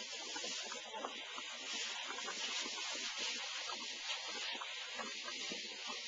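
Thin plastic sheet rustling and crinkling as it is handled and folded: many small irregular crackles over a steady hiss.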